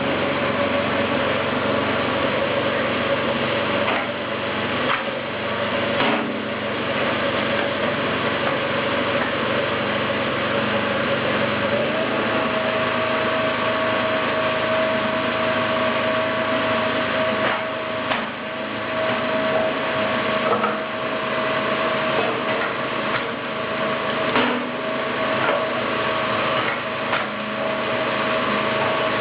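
Small engine running steadily on a kinetic flywheel log splitter, with a steady whine that steps up slightly partway through. Several sharp cracks come as wood rounds are split.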